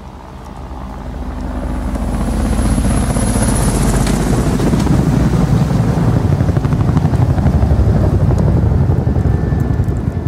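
A loud, rumbling roar with a fast, even flutter, like a helicopter passing low overhead. It swells over the first few seconds and then holds, with a faint high whistle above it early on.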